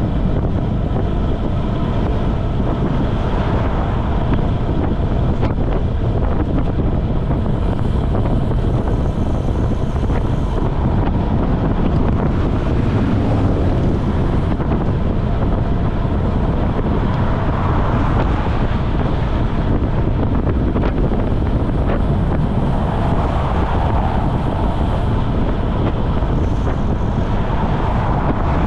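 Wind buffeting the microphone of a camera on a road bicycle moving at about 25–29 mph: a loud, steady rush and rumble.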